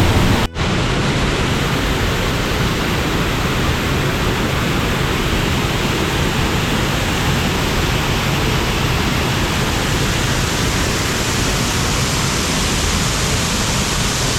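Steady roar of a large waterfall heard close up, with a brief break about half a second in.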